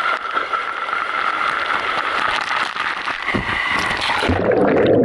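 Water rushing down a water slide under a sliding rider, a steady spraying hiss, ending about four seconds in with a plunge into the splash pool, where the sound turns muffled and low.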